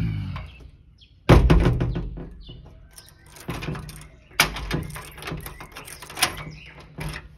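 Hotel room door with an electronic keypad lever lock being worked open: a loud clunk about a second in, then several sharp clicks and rattles from the handle and latch.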